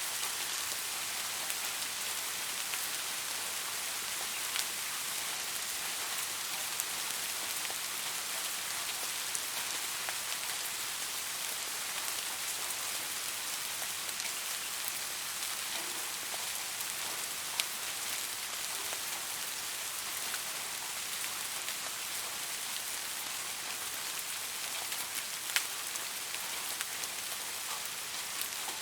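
Steady rain falling on a surface: an even hiss with scattered individual drop ticks, and a few louder single drips standing out now and then.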